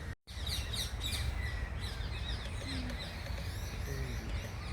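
Small birds chirping: many quick, high, falling chirps, thickest in the first second or so, over a steady low rumble. The sound cuts out for a split second right at the start.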